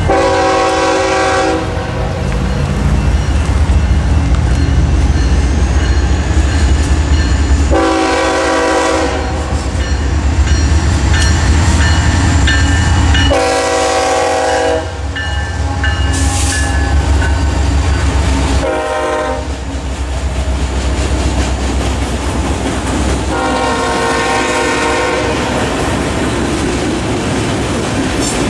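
Freight train's BNSF diesel locomotives passing close with a loud, steady engine rumble, the horn sounding five blasts: one at the start, then long, long, short, long, the standard warning for a grade crossing. Near the end the locomotives are past and the autorack cars roll by with wheel clatter.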